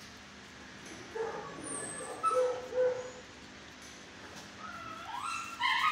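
A dog whining and yipping: a few short whines about a second in, then quicker whines that rise in pitch near the end.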